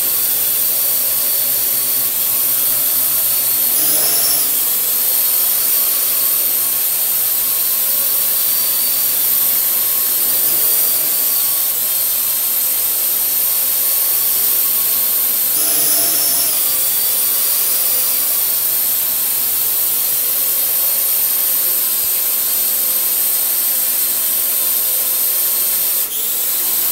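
Parrot AR.Drone quadcopter hovering in place, its four motors and propellers giving a steady high whine that rises briefly in pitch twice, about 4 and 16 seconds in.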